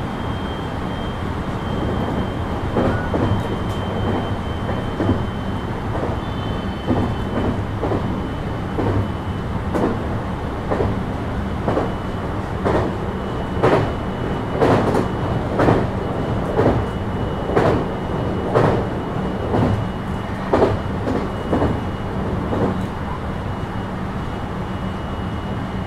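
JR West 223 series 2000 electric train running at speed, heard from inside the car: a steady hum with a thin high tone over it. The wheels clickety-clack on the track about once a second, loudest in the middle stretch.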